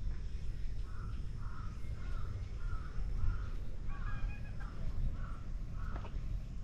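A crow cawing in a run of about eight short caws, roughly two a second, over a steady low rumble.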